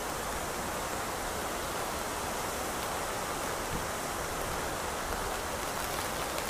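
Steady rushing of falling water from the 9/11 Memorial's waterfall pool, mixed with pouring rain.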